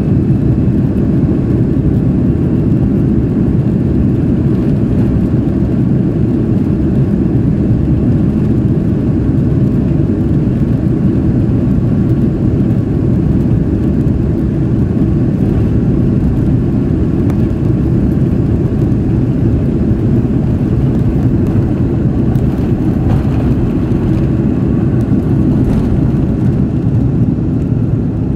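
Jet airliner's engines at takeoff power heard from inside the passenger cabin during the takeoff roll down the runway: a loud, steady low rumble.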